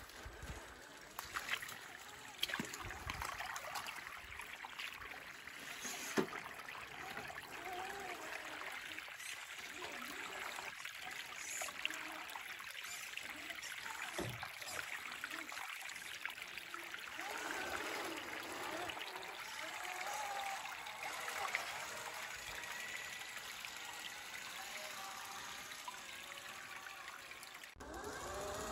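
Small stream trickling and running over its bed, with a few sharp clicks now and then.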